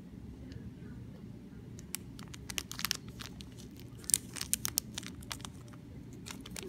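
A small plastic bag of pigment powder crinkles in bursts of crackling as it is handled and squeezed to tip the powder out. This begins about two seconds in, over a low steady hum.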